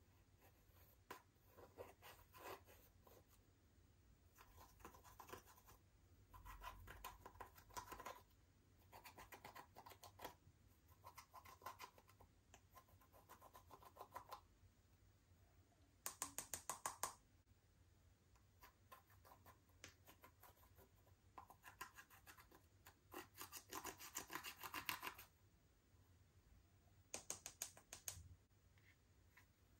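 Slime being squeezed and stretched by hand, crackling and popping in short bursts of rapid clicks, about ten bursts of a second or two each, the loudest about halfway through and again near the end.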